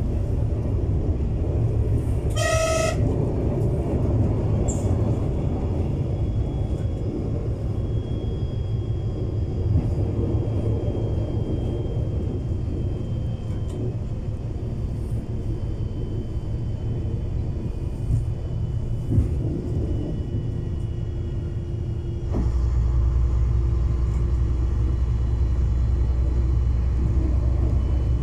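LVT/S diesel railbus running along the track: a steady low rumble of engine and wheels. The railcar's horn gives one short blast about two seconds in, and about 22 seconds in the low rumble gets louder.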